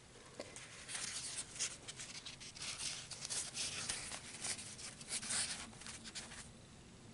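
Paper napkin wrapped around a Styrofoam seat rustling and scraping against crocheted yarn as it is pushed into place by hand: a run of soft, scratchy rustles from about a second in until shortly before the end.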